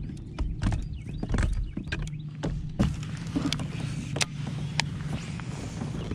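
Irregular clicks and knocks from a fishing rod and gear being handled aboard a kayak, over a steady low hum.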